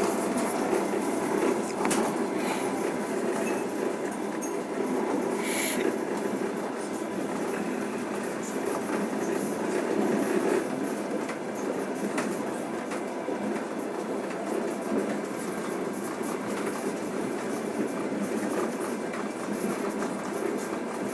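Passenger train running along the track, heard from inside the carriage: a steady rumble of wheels on rails with a few sharp clicks, and a brief higher hiss about six seconds in.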